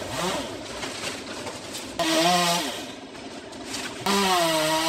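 Chainsaw running up in a tree, revving hard twice, about two seconds in and again about four seconds in. Each time the pitch holds and then sags as the chain bites into the wood, with lower running between the revs.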